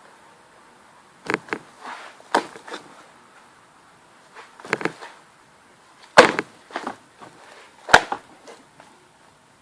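Homemade slime being squeezed and folded by hand, giving scattered sharp pops and clicks as trapped air bursts, in small groups; the loudest two come in the second half.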